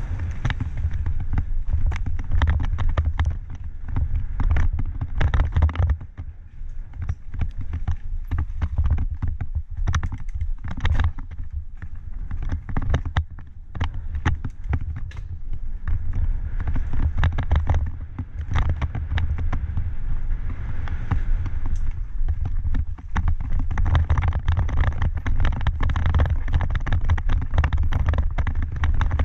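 Mountain bike riding down a dirt singletrack, heard from a helmet-mounted camera: a steady low rumble from tyres and wind on the microphone, with frequent rattles and knocks from the bike over rough ground. It eases off for a while in the middle and picks up again near the end.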